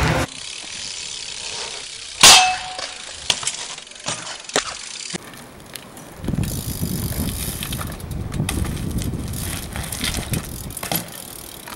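BMX bike being ridden: a sharp metallic clang with a short ring about two seconds in, then a few lighter clicks and rattles. Later comes a steady low rumble of tyres rolling, with scattered clicks.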